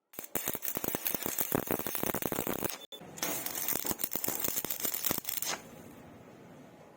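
Stick-welding arc crackling and popping in a dense, irregular stream, briefly cut off about three seconds in, then going on and settling to a quieter, steadier hiss for the last second and a half.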